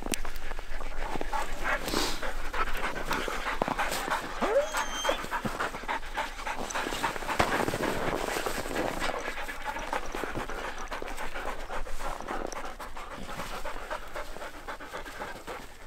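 Huskies panting hard and fast, excited while being harnessed, with a brief rising whine about four and a half seconds in.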